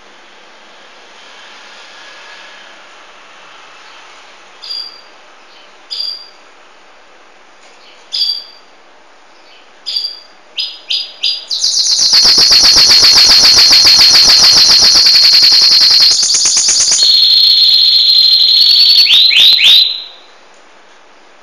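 Belgian canary singing: a few separate chirps at first, quickening, then a loud, fast trilled song for about eight seconds that ends in a few quick downward-sweeping notes.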